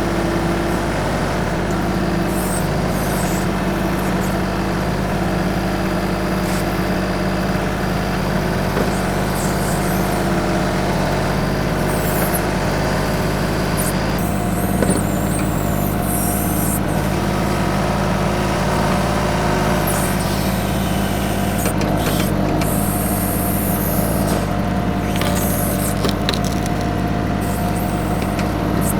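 The 25 hp TYM 2515H compact tractor's diesel engine runs steadily, its note shifting about halfway through, with occasional short knocks or scrapes over it.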